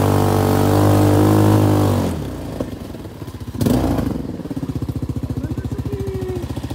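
Kuba MX 220 ATV engine running steadily under throttle, then about two seconds in dropping back to an even, pulsing idle. A short knock sounds a little past halfway.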